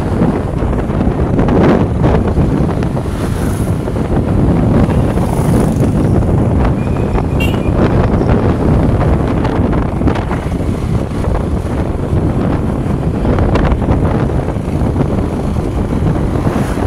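Steady wind rush buffeting the microphone of a moving open vehicle, over a low rumble of engine and road noise.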